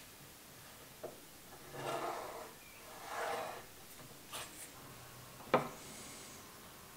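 Pencil scratching along a steel rule on an oak blank, two strokes of about half a second each, with a few light clicks between them and one sharp click about five and a half seconds in.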